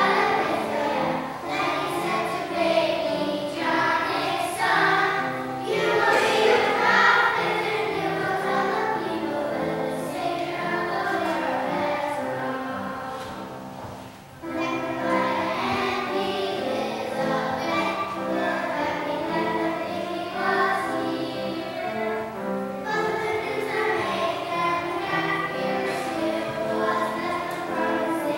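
Children's choir singing a hymn in a reverberant church, with a brief pause between phrases about halfway through.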